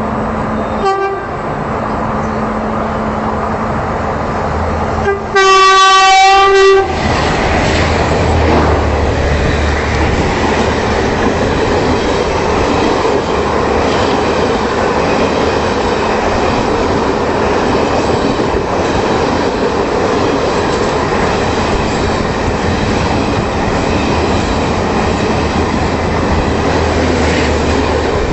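Indian Railways electric locomotive horn sounding a short toot about a second in, then a loud blast of about two seconds around six seconds in. After it comes the steady running noise of passing trains, wheels clattering over the rail joints.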